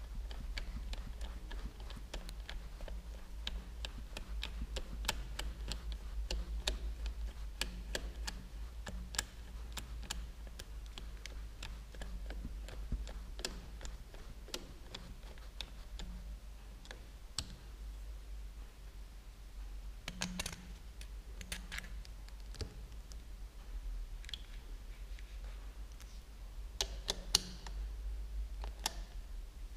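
Hand screwdriver with a socket bit working small screws on a motorcycle's handlebar switch housing: irregular light clicks and ticks from the tool, a few a second, over a steady low hum.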